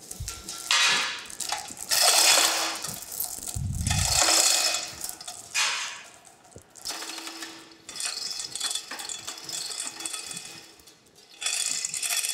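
Manual chain hoist lowering a boring-mill table: the hand chain rattles through the hoist in several bursts with short pauses as it is pulled, with a low thump about four seconds in.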